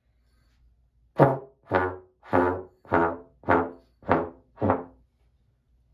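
Trombone played as seven short, separate notes, evenly spaced at a little under two a second, each starting sharply and dying away quickly.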